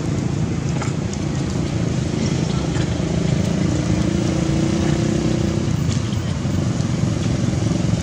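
Steady low rumble of a running engine.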